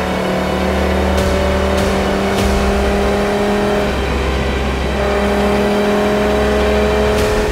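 Audi TT RS's turbocharged five-cylinder engine pulling hard under acceleration, its pitch climbing steadily, dropping away for about a second midway, then climbing again.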